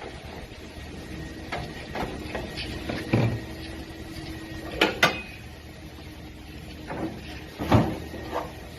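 A string of separate knocks and clacks, with a sharp double knock about five seconds in and another loud one near the end, over a faint steady hum.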